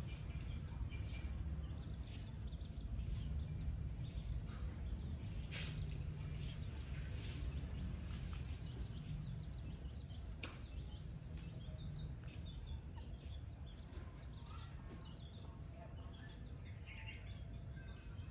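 Free-range chickens and chicks foraging, with scattered short chirps and clicks over a steady low rumble, and faint peeping near the end.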